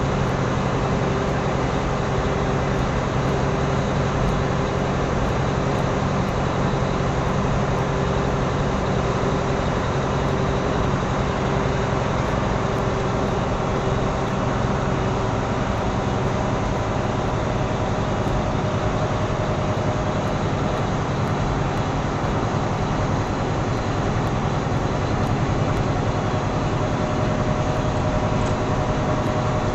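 Steady drone of a semi truck's engine and road noise, heard from inside the cab while driving. A constant low hum with faint steady tones sits under an even rushing noise.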